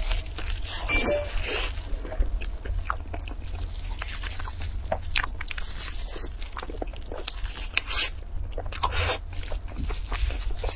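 Close-miked eating sounds: biting into and chewing a soft green bun, wet mouth clicks and smacks, with crackly bursts of the plastic wrap being handled about a second in and again near the end.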